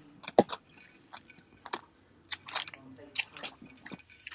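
Irregular wet mouth clicks and lip smacks close to the phone microphone as someone puffs on a joint, with one sharper click about half a second in.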